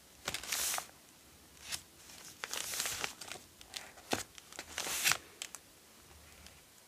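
Paper signatures of a handmade junk journal being handled and shifted: several short rustles and crinkles, with a sharp tap about four seconds in.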